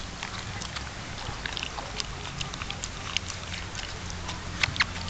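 A dog lapping water from a stainless steel bowl: quick, irregular wet laps and small splashes, with a couple of louder laps near the end.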